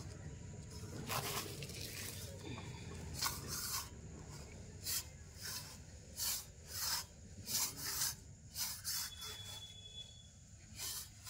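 Stainless steel plate scraping and scooping through a heap of coarse sand: a run of short gritty scrapes, roughly one every half second to a second.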